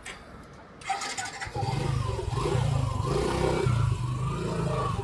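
Motorcycle engine starting about a second and a half in and running, its speed rising and falling.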